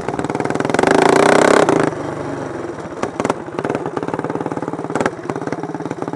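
Racing lawn mower engines running hard. One gets much louder from under a second in to just before two seconds, then the engines run on at a steady level with a few sharp clicks.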